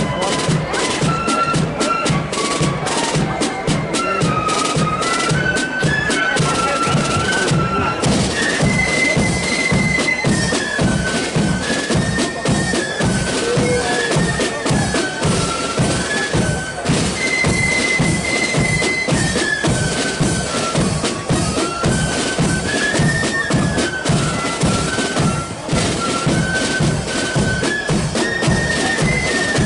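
Marching flute band playing a tune, the flutes carrying a stepping melody over a steady march beat of bass and snare drums.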